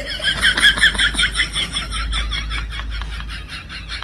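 An added comedy sound effect: a rapid string of short, high chirps, about eight a second, that slowly fades, over a low hum.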